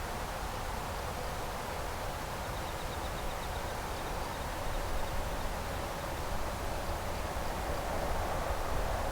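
Steady outdoor night ambience: a low rumble and hiss, with faint high insect chirps for a second or two near the middle.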